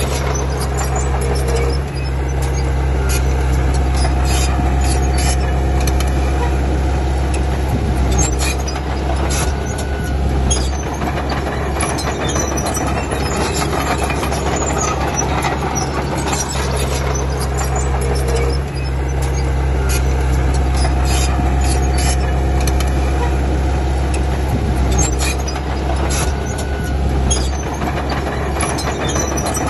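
Komatsu D31P crawler bulldozer's diesel engine running steadily under load, with scattered metallic clanks and squeaks. The engine note dips briefly twice, about two seconds in and again a little past halfway.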